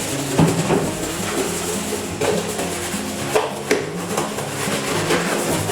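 An old toothbrush scrubbing the plastic top panel of a washing machine in quick, irregular rasping strokes, over instrumental background music.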